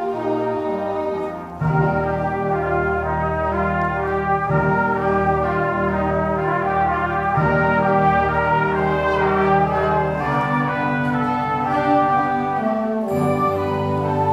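A high school concert band of woodwinds and brass playing held chords, the brass to the fore. After a brief softer moment, the low brass comes in strongly about a second and a half in.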